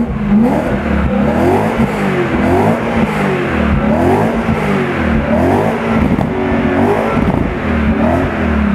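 BMW M3 E92's 4.0-litre V8 breathing through an Akrapovič exhaust, revved repeatedly while standing still: a series of quick throttle blips, each rising and falling in pitch, about one every second and a half.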